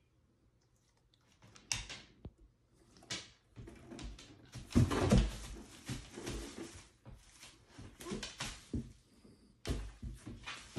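Thumps, knocks and scuffling against a cardboard box as a husky and a ragdoll cat tussle in and around it, the loudest knocks coming about five seconds in.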